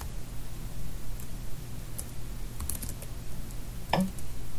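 Computer keyboard keys tapped a few separate times, at an uneven pace, over a low steady hum.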